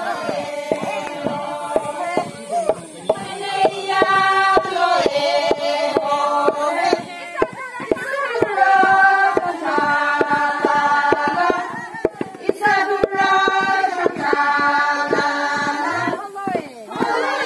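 A group of women singing a traditional Sangtam Naga folk song in chorus, in held phrases, while they bring long bamboo poles down in a steady beat of sharp knocks, about two or three a second.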